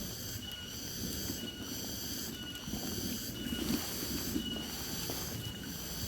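Insect chorus: a high buzzing that swells and fades about once a second and keeps going throughout, over a low, uneven rumble.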